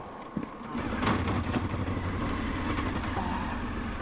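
Honda VFR's V4 engine catching on a bump start, running steadily for about three seconds, then dropping away near the end as it dies again. The bike keeps quitting because its charging system has failed.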